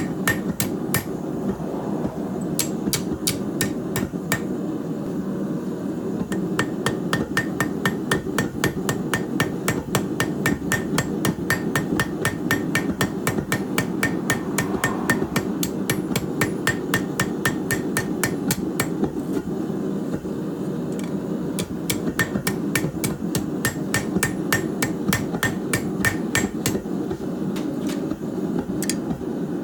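Hand hammer striking hot steel on an anvil in quick, even blows, about three to four a second, with a short lull about two-thirds of the way through. A steady low rushing noise runs underneath.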